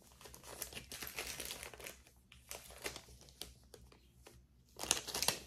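A bag crinkling and rustling as it is emptied of jewelry, with irregular small clicks of the pieces spilling out and a louder flurry near the end.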